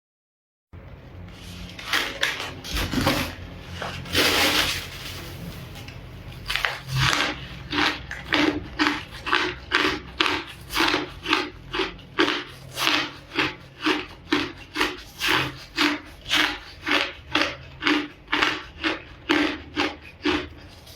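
A person biting and chewing crunchy ice close to the microphone: a few irregular bites and cracks at first, then steady chewing crunches at about two to three a second over a faint low hum.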